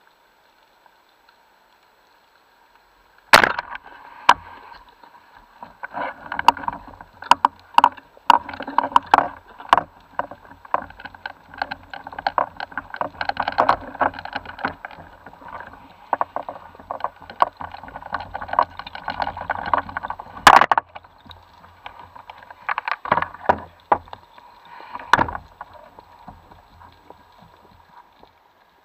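Underwater, a speargun fires with a single sharp crack about three seconds in. Irregular clicking, knocking and rattling of the gun and gear follows, heard through an underwater camera housing, with two more loud knocks in the second half.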